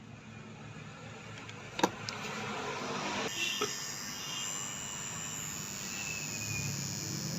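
Hot stapler plastic welder worked against a plastic bumper: one sharp click about two seconds in, then a steady hiss with a faint high whine.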